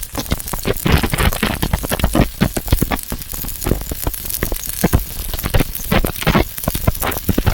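Welding arc crackling and sizzling unevenly, a dense run of sharp pops over a steady hiss, as a root weld is laid.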